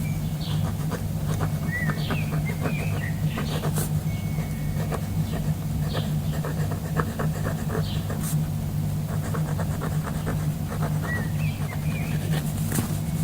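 Nature soundscape: a steady low hum with short chirping bird calls at a few points, and scattered light clicks.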